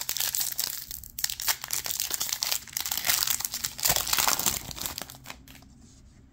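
Foil wrapper of a Panini Contenders football card pack crinkling and tearing as it is ripped open by hand. The crinkling dies down about five seconds in.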